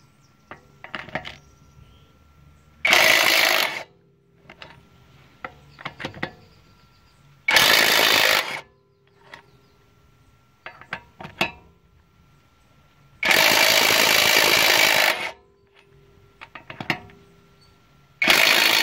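AutoJare 20V brushless 1/2-inch cordless impact wrench hammering on wheel lug nuts to loosen them, in four short bursts with the third lasting about two seconds. Light clicks and knocks of the socket going onto the nuts come between the bursts.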